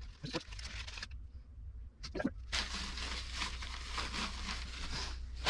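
Rustling and crinkling of packaging as items are taken out and handled, with a sharp click about two seconds in and steadier rustling after it, over a constant low hum.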